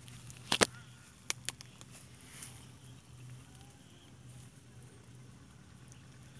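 A few sharp clicks: a loud pair about half a second in and two smaller ones around a second and a half, over a faint steady low hum.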